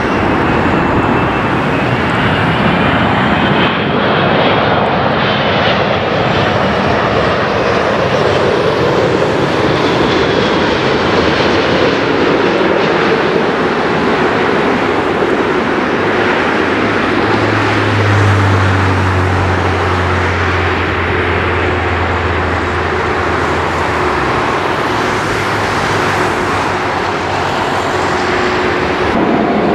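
Airbus A380-861 jet airliner landing: its four Engine Alliance GP7270 turbofans make a loud, steady jet noise as it passes close and touches down, with an engine whine falling in pitch in the first several seconds. A deep steady hum joins in for several seconds past the halfway point during the rollout.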